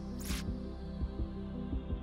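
Electronic background music with a steady beat and a low bass line, with a brief swish about a quarter second in.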